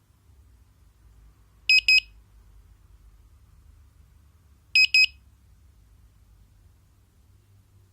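Devolo Home Control Siren, a Z-Wave smart-home siren, sounding two pairs of short, high-pitched beeps about three seconds apart.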